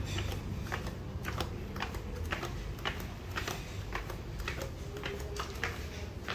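Footsteps going down a stairway, a sharp click at each step, about two steps a second.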